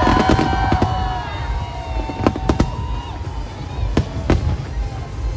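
Fireworks display: whistling shells whose tones bend down and fade early on, then a series of sharp bangs, with a cluster about two and a half seconds in and two more near four seconds, over a low continuous rumble.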